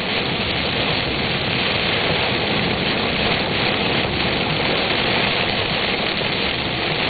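Steady rush of rain and wet-road tyre noise inside a car driving through a thunderstorm downpour.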